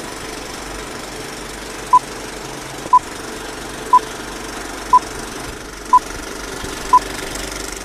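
Old film-leader countdown effect: the steady rattle, hiss and crackle of a film projector and worn film, with a short beep once a second, six beeps in all, marking the countdown numbers.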